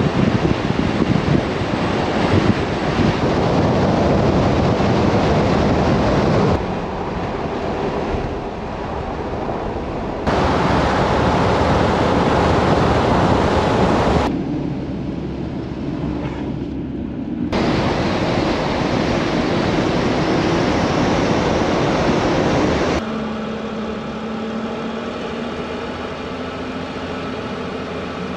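Wind buffeting the microphone and tyre and road noise from a 4x4 Mercedes Sprinter van driving on snow-covered roads, heard in several clips cut abruptly together. In the last few seconds there is a quieter, steadier stretch with a low engine hum that rises slightly.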